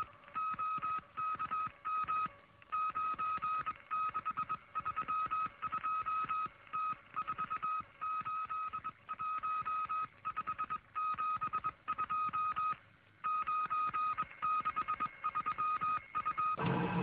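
Morse code signal: a single steady beeping tone keyed on and off in irregular short and long beeps over a faint hiss of radio static.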